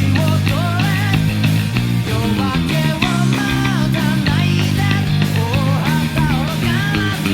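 Fast rock song with a man singing over electric guitars and drums, and an electric bass guitar played along with it.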